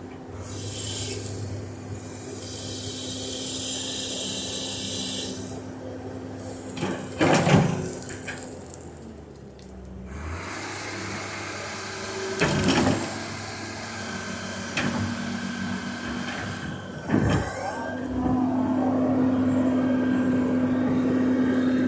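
Excavator engine running steadily while it digs. A high hiss lasts about five seconds early on, and three sharp clanks or knocks come a few seconds apart. The engine note grows louder near the end.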